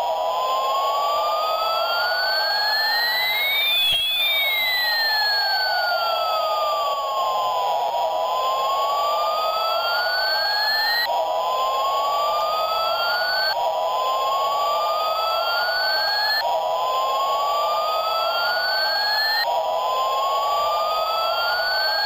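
Electronic siren sound: a slow wail that rises and falls in pitch, then a run of rising sweeps about every three seconds, each cutting off suddenly, over a steady hum.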